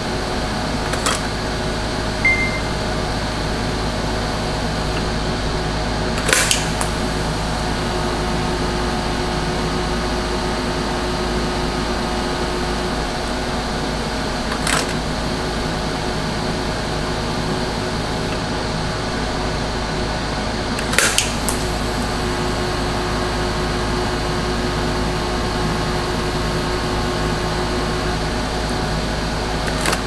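Steady electrical machine hum in a welding shop, with a few short, sharp clicks spaced several seconds apart.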